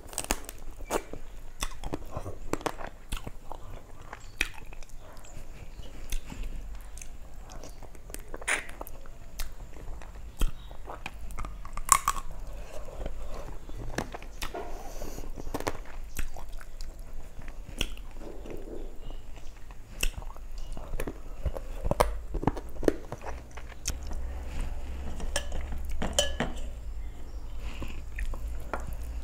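Close-miked chewing with wet mouth and lip-smacking sounds and some crunchy bites, as a person eats rice, curry and fried food by hand. Between mouthfuls come the soft squelch and clicks of fingers mixing rice and curry on a steel plate.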